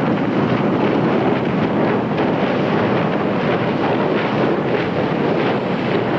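Steel hull of the container ship OOCL Assurance breaking through first-year sea ice: a loud, steady rushing and crunching as the bow crushes and scrapes the ice floes, with faint irregular cracks throughout.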